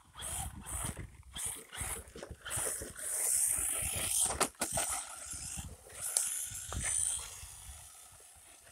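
Cheerwing 1/16 electric 4x4 RC short course truck driving, its motor and tyres heard in irregular bursts as the throttle is worked, loudest just past the middle and easing off near the end.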